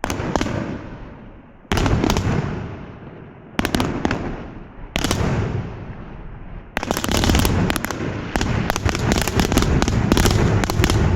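Fireworks exploding: four separate loud bangs, each trailing off in a rolling rumble, then from about two-thirds of the way through a rapid, dense volley of bangs and crackles.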